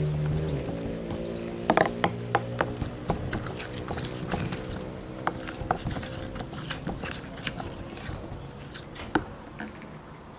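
Homemade glue slime being stretched and squeezed by hand, making irregular sticky clicks and pops that are dense at first and thin out near the end.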